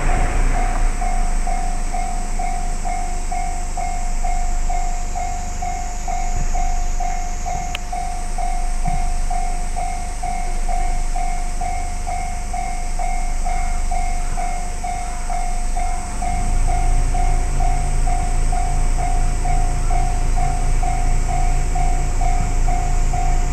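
Japanese railway level-crossing warning bell ringing evenly, about two dings a second, the alarm that a train is approaching and the crossing is closed. A low rumble runs underneath and grows louder about two-thirds of the way in.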